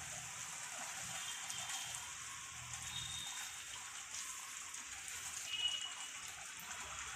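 Black-chickpea and potato curry gravy simmering in a pan on a gas stove, giving a soft, steady bubbling hiss. A spatula stirs through it in the second half.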